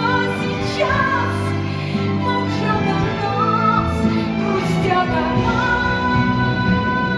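A woman singing a musical-theatre song over instrumental accompaniment.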